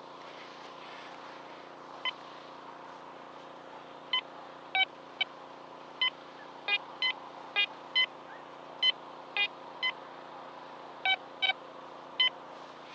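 Quest Q20 metal detector giving about fifteen short beeps as its search coil is swept over the sand. There is one beep about two seconds in, then frequent irregular beeps from about four seconds on, in two different pitches, each beep signalling metal under the coil.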